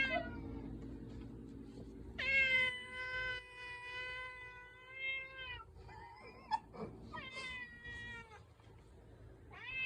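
Domestic cat meowing for its dinner: one long, drawn-out meow of about three seconds, then a shorter meow a couple of seconds later, and another starting near the end.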